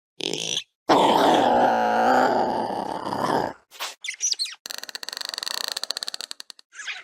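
A run of Compsognathus creature sound effects: short squeaky chirps, a longer raspy call of about two and a half seconds starting a second in, then a rapid clicking rattle lasting about two seconds, with a last chirp near the end.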